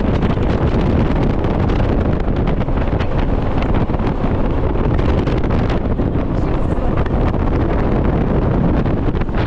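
Steady wind buffeting the microphone on a Shotover jet boat under way, with the boat's engine running and water rushing beneath it.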